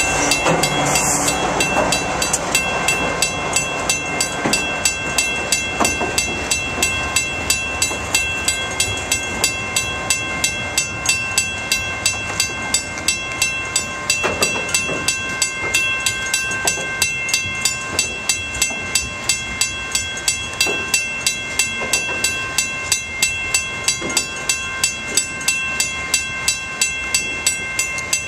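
Freight train cars, mostly loaded centerbeam lumber cars, rolling past with a regular clickety-clack of wheels about three times a second. Steady high-pitched ringing tones sit above the rolling rumble.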